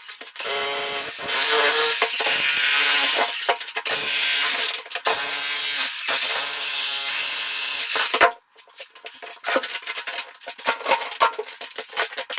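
Power drill boring into hard concrete, running steadily in long stretches with short breaks, then cutting off about eight seconds in. After it comes a quick run of sharp clicks and taps.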